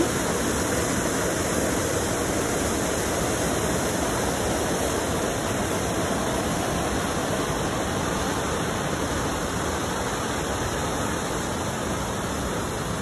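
Water pouring through a dam's sluice gates: a steady, even rush of churning white water that does not change.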